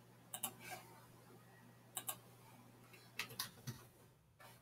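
Faint clicks of a computer mouse, several in quick pairs like double-clicks and a short run of three, over a low steady hum.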